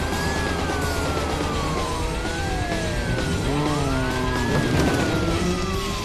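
Several police car sirens wailing at once, their rising and falling pitches overlapping, over a low engine rumble.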